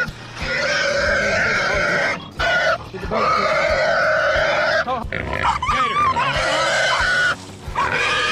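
Hog squealing in long, drawn-out squeals with short breaks about two seconds in, near three seconds and around seven and a half seconds; in the middle the squeal wavers up and down in pitch.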